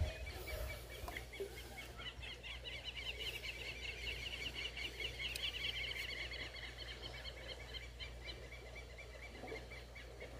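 Faint bird calling: a rapid, high-pitched chattering trill, from about two seconds in and lasting several seconds, over low steady outdoor background noise.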